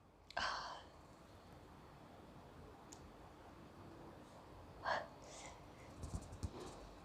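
A woman's short breaths after a sneeze brought on by garam masala: one just after the start and another about five seconds in, with a few soft knocks near the end.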